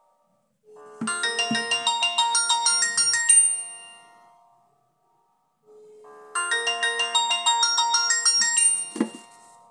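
Retro mobile phone playing a polyphonic melody ringtone. The same short tune rings twice with a short pause between, and there is a brief thump near the end.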